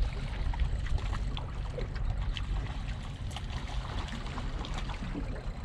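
Wind buffeting the microphone in a steady low rumble, with water lapping and trickling against shoreline rocks and scattered small splashes.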